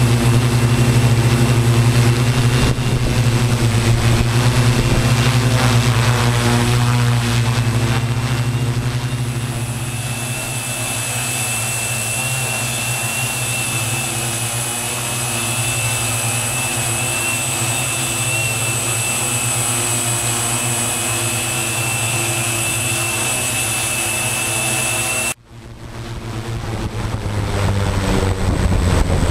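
Tarot T960 hexacopter's six electric motors and propellers humming steadily in flight. The sound breaks off abruptly about 25 seconds in, then swells back up.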